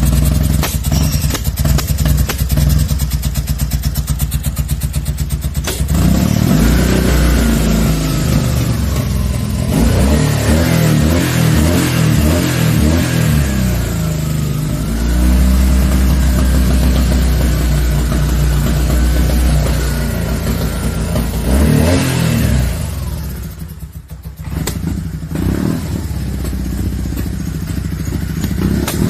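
BMW R1200C's boxer-twin engine running, its revs rising and falling several times and sagging sharply about 24 seconds in before picking up again. It is running with a broken seal on the intake.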